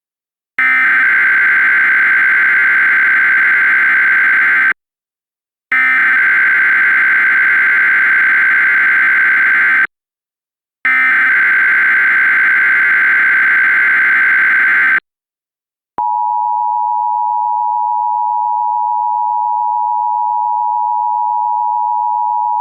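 Three bursts of Emergency Alert System SAME header data tones, a harsh digital screech about four seconds each with about a second's gap between them. About 16 seconds in comes the EAS two-tone attention signal, a steady 853 and 960 Hz dual tone. This is the coded header and alarm tone that open an emergency alert broadcast.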